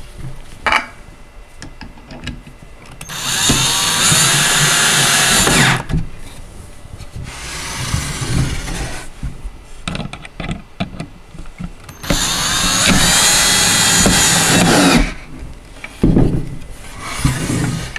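Cordless drill driving two screws, one after the other, through the tray arms into the wooden doll high chair. Each run lasts about three seconds and starts with a rising whine, with knocks of the parts being handled in between.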